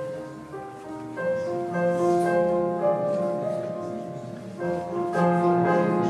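Electronic keyboard played live: slow, held notes and chords, changing about once a second.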